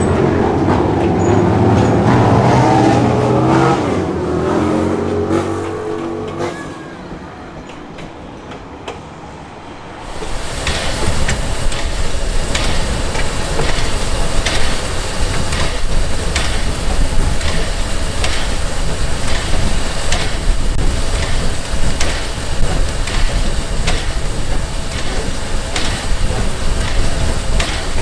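Vintage railway carriages rolling past on the track, with wheel noise and a whining tone that falls in pitch as they go by, then fades. From about ten seconds in, a small steam locomotive is heard close up as it runs: a steady rumble and hiss with regular sharp clicks.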